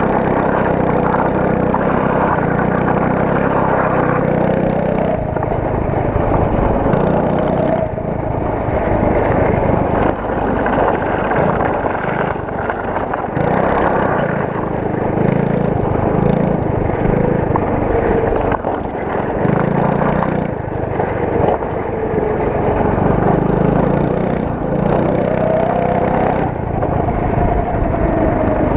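Go-kart engine running under way, its pitch rising and falling again and again as the throttle is opened and eased.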